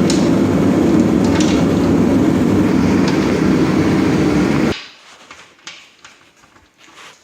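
A loud, steady mechanical rumble that cuts off suddenly nearly five seconds in, leaving only a few light clicks and clinks.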